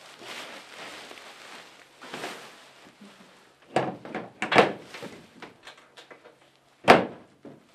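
A large woven plastic sack of bean straw rustling as it is hauled and set down, with a cluster of sharp knocks about four seconds in and a loud bang near the end.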